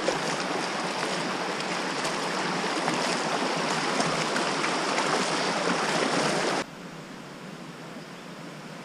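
A shallow creek rushing steadily at a crossing, an even hiss of moving water. About two-thirds of the way in it cuts off suddenly to a much fainter hush.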